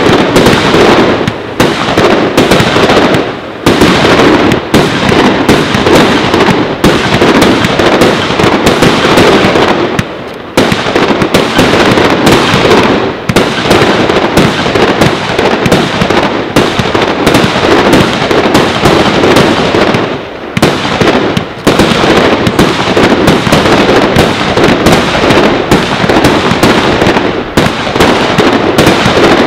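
A firework battery firing a rapid, dense string of shots and bursts, broken by a few short pauses, the longest about ten seconds in.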